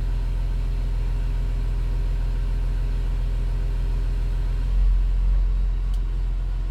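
Hercules Trackmobile's diesel engine idling steadily, heard from inside the cab. About three-quarters of the way through, the engine note changes and a deeper rumble swells for about a second, followed by a faint click.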